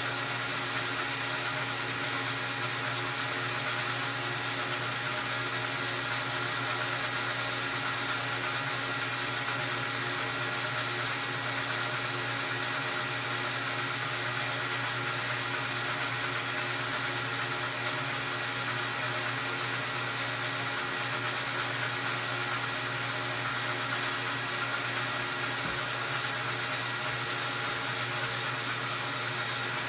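Metal lathe running with its power feed engaged during a light facing cut on a piston: a steady machine hum with several constant whining tones that stays level throughout.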